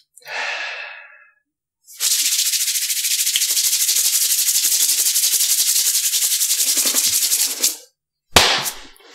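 A steady, fast-pulsing rattly hiss like a shaker, lasting about six seconds. Before it comes a short falling swoosh, and near the end a brief noisy burst.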